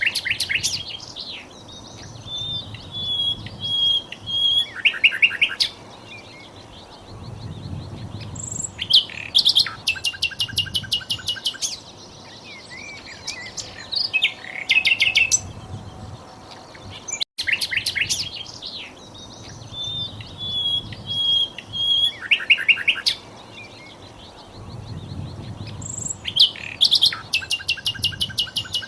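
Recorded song of a sikatan londo (a flycatcher), looped as a tutor track: high-pitched phrases of rapid, evenly spaced chattering notes alternating with a short run of clear whistled notes. The recording cuts out briefly about halfway through and the same sequence starts again.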